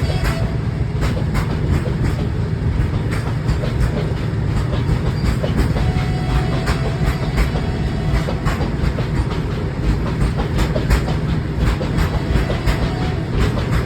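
Heavily loaded freight train of BOXN open wagons rolling past. The wheels clatter over rail joints in an irregular run of clicks above a steady low rumble.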